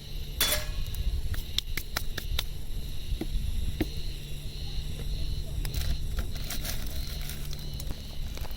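Camp cookware being handled: a series of sharp clicks and light clinks over a steady low hum.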